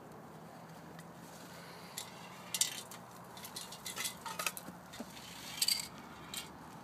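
Metal spray paint cans clinking and knocking against each other as they are handled, a handful of sharp irregular clinks with a short ring.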